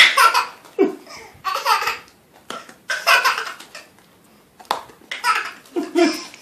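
Baby belly-laughing in repeated bursts about a second apart, with short pauses between and a couple of sharp clicks.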